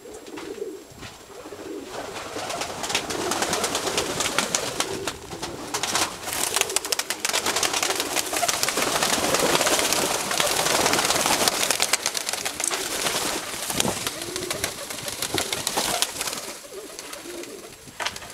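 Domestic pigeons cooing in a loft. From about two seconds in to about sixteen seconds there is a louder stretch of dense rustling and rapid fluttering, as the birds flap their wings.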